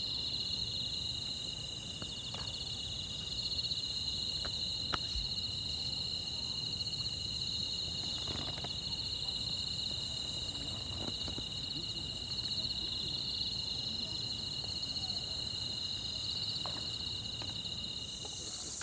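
Summer-night insect chorus, crickets and the like, a steady shrill trilling at two close pitches with a fast pulse, plus a few faint clicks.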